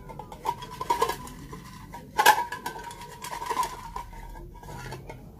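Clinks and knocks from an openwork serving bowl being handled and tilted, the loudest about two seconds in, with a faint ringing tone from the bowl under the knocks.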